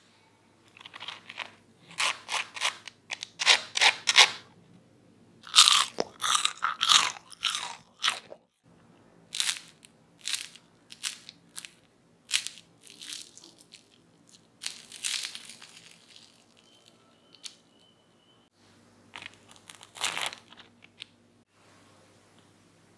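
Super-crispy fried potato fries, made from mashed potato and corn starch, crunching and crackling as they are handled and snapped apart by hand. The sound comes as a string of short, sharp crunches, densest in the first third.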